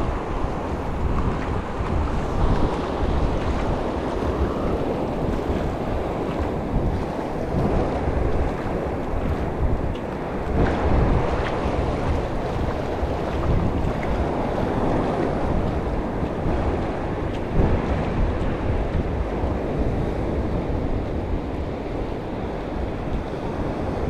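Ocean waves crashing along the beach in strong wind, with wind buffeting the microphone: a steady rush of surf over a gusty low rumble.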